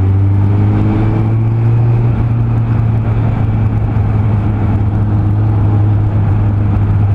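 Suzuki Bandit's inline-four engine running under way, its pitch rising gently over the first couple of seconds and then holding steady, with rushing wind noise over it.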